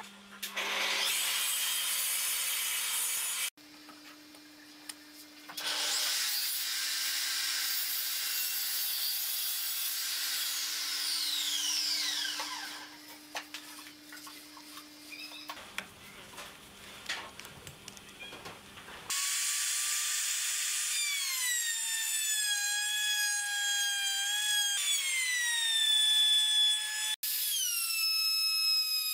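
Power tools cutting wood. In the first half a tool runs noisily through the wood and winds down near the middle; in the last third a handheld trim router whines at high speed, its pitch sagging in steps as the bit cuts a groove in the wood.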